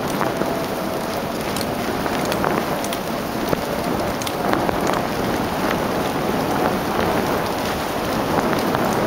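Dog sled gliding over a packed snow trail behind a running team: a steady noise of the runners sliding on snow, with scattered sharp little clicks.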